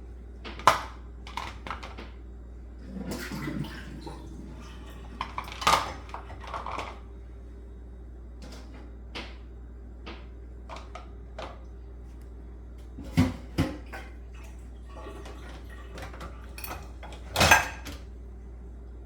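Bowls being set down one after another in a dishwasher's top rack: scattered clinks and knocks against the rack and each other, the loudest about a second in and a little before the end.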